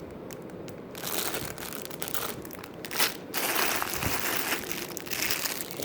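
Jewelry packaging rustling and crinkling in irregular spells as pieces are handled and taken out of a box, with a sharper crackle about three seconds in.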